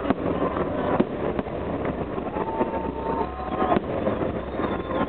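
Fireworks display: several sharp bangs of bursting shells over a steady dense background din.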